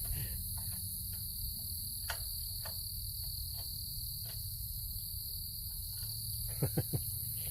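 Steady night-time chorus of crickets, a continuous high trill, over a low steady hum with a few faint clicks.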